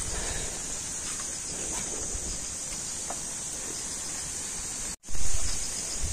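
Steady, high-pitched insect chorus over quiet rural outdoor ambience. About five seconds in the sound cuts out for an instant and comes back with a short, louder low rumble.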